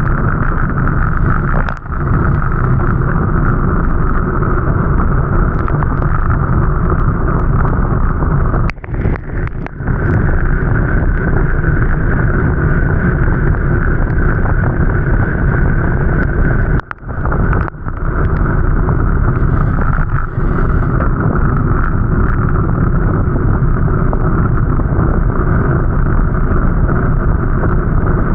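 Steady, loud rushing noise of a moving vehicle with wind on the microphone. It dips sharply for a moment a few times.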